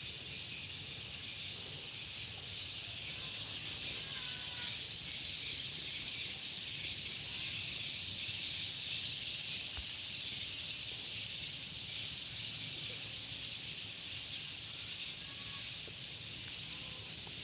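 Steady high-pitched hiss of insects droning in the field, holding level without breaks.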